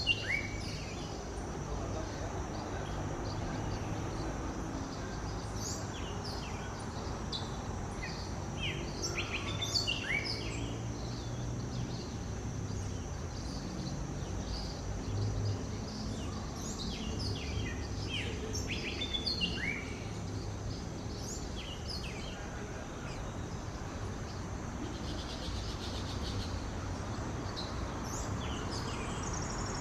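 Several wild birds giving short, quick chirps and calls, in flurries about a third of the way in and again past the middle, over a steady high-pitched background tone and a low rumble.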